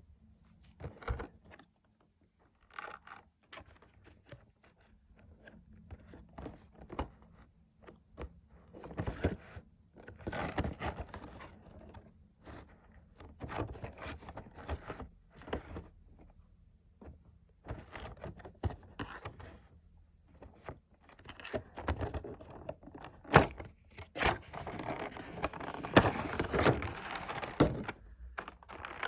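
Hands unboxing a Funko Pop figure: cardboard box and plastic packaging rustling, scraping and crinkling in irregular bouts, with sharp clicks and taps. The handling grows busier and louder in the second half.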